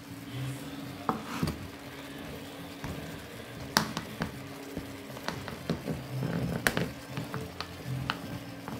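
Chicken fillets sizzling in a frying pan, with a wooden spatula scraping and knocking against the pan now and then; two sharper knocks stand out a few seconds apart.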